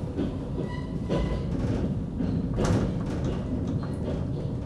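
Dresden Schwebebahn, a cable-hauled suspension railway, running along its overhead rail: a steady low rumble with scattered knocks and clicks, the loudest about two and a half seconds in, and a faint brief wheel squeal about a second in.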